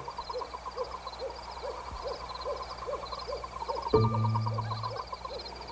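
Night-forest sound effects: a hooting call repeats about twice a second over fast, steady chirping like insects or frogs. About four seconds in, a held musical note sounds for about a second.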